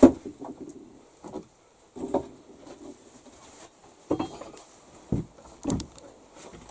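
Irregular clunks, knocks and scrapes of broken brick and rubble being handled and laid into a brick stove during repair, about seven separate knocks, the loudest at the very start.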